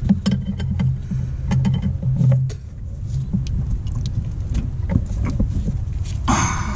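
Ratchet wrench clicking in short runs as a bolt on a power steering pump is tightened, over a steady low hum. Near the end comes one brief, louder scrape.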